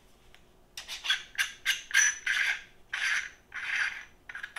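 Threaded front cap being unscrewed by hand from a Player One Uranus-C astronomy camera, a run of about eight short rasping scrapes as the threads turn, starting about a second in.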